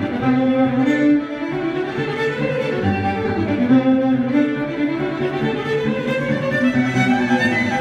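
Acoustic string group playing live, a bowed fiddle carrying a flowing melody over sustained lower string notes.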